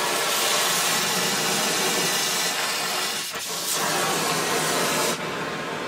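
Oxy-fuel torch flame burning with a steady hiss while heating an early Ford banjo rear axle housing, so the metal expands slightly for the new pinion bearing to be pressed in.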